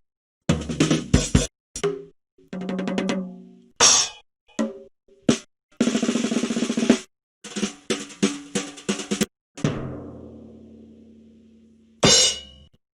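A string of short comedy drum-kit stings, the punchline kind, played one after another with short silences between. They are quick snare and tom fills, a snare roll about six seconds in, and cymbal hits, one left ringing out for about two seconds before a last crash near the end.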